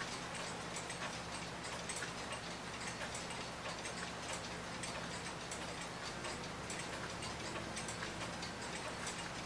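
Early-1900s New Haven Clock Co. metal mantel clock's wind-up movement ticking steadily, about three to four ticks a second. The freshly oiled movement is running well.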